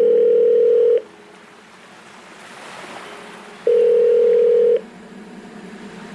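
Electronic soundtrack: two held steady beeps, each about a second long and about three seconds apart, with a soft surf-like hiss swelling between them.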